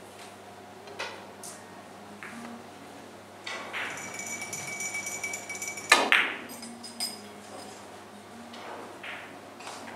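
Carom billiard balls clicking against one another and the cushions as a three-cushion shot plays out, a few spaced clicks, then a sharp loud knock about six seconds in and another lighter click a second later.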